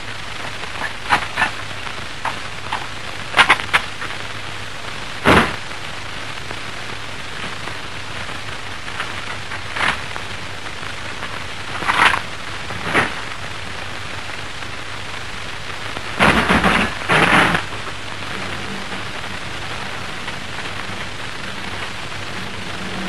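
Artillery ammunition baskets and cartridge cases being handled, making a series of scattered knocks and clatters, the loudest pair about two-thirds of the way through. Under them runs the steady hiss of an old film soundtrack.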